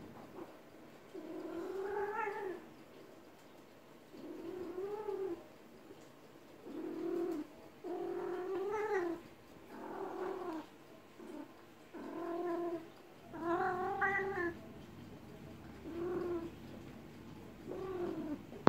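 Female cat in heat yowling over and over, about ten drawn-out calls in a row, each a second or so long with short pauses between: the caterwauling of a queen in estrus.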